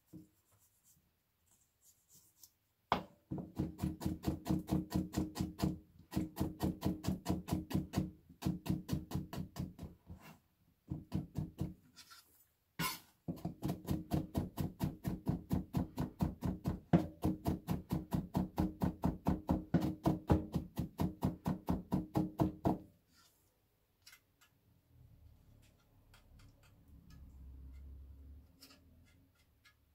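Kitchen knife mincing garlic on a cutting board: quick, even chops about five a second, in runs of several seconds with short pauses, stopping a few seconds before the end.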